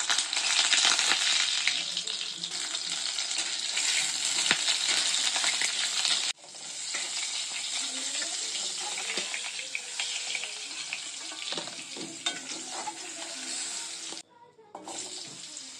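Pointed gourd (potol) pieces sizzling as they fry in hot oil in a kadai, with a steel spatula scraping and turning them. The sizzle breaks off abruptly twice.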